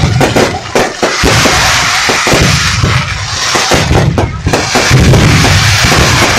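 Fireworks display going off loudly: many sharp bangs from bursting aerial shells in quick succession over a dense, continuous crackle.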